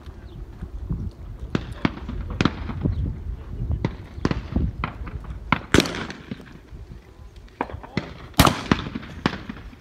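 Shotgun shots from trap shooters on the line. The two loudest reports come about two and a half seconds apart, one just before the middle and one near the end, each with a short echo. Fainter sharp reports and clicks fall between them.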